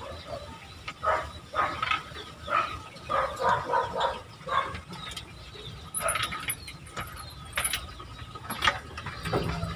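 A series of short animal calls, several in quick succession in the first half, followed by a few sharp clicks.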